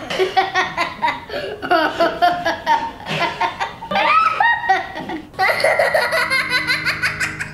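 Children laughing and giggling in a string of high-pitched laughs, with a short break about five seconds in. Near the end, soft music with held low notes comes in beneath the laughter.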